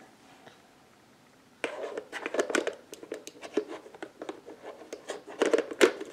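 Plastic shape-sorter blocks knocking and clattering against the toy's plastic lid and bin as a toddler handles them: a quick irregular run of clicks and knocks that begins about a second and a half in.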